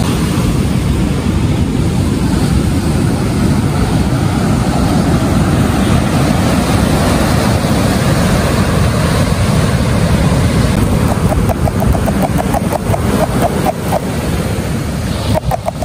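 Loud, steady rush of surf and wind on an open beach, heaviest in the low end. Over the last few seconds a fast, even pulsing of a mid-pitched tone, several beats a second, comes in under it.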